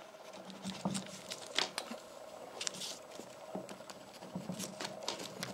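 A pen scratching on notebook paper in short strokes as block letters are written, with one longer stroke a little under three seconds in.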